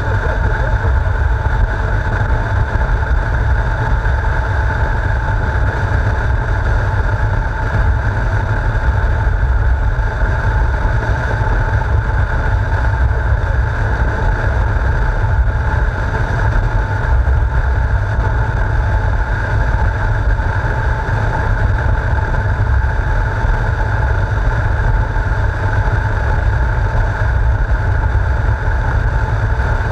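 Motorcycle cruising at a steady speed, heard from a camera on the bike: heavy wind rumble on the microphone over a steady engine drone.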